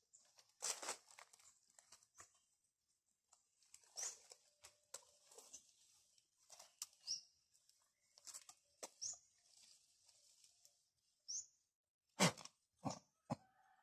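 Leaves rustling and twigs cracking as duhat (Java plum) branches are pulled and fruit picked by hand, with three sharper snaps near the end. Short high bird chirps come every couple of seconds.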